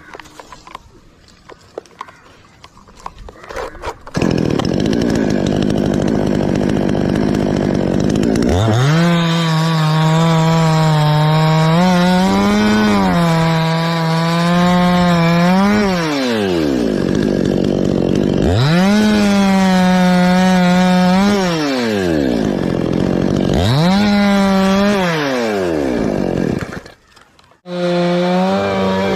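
Two-stroke chainsaw cutting coconut palm wood. Quiet at first, it comes in loud about four seconds in, then revs up to full throttle and falls back three times, each burst held for a few seconds. It drops out briefly near the end and then comes back at high revs.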